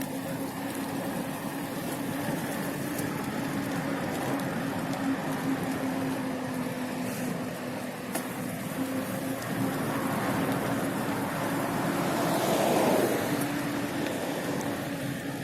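Motorbike riding at a steady speed: the engine holds a steady hum under a constant rush of wind and road noise. The noise swells briefly about twelve seconds in.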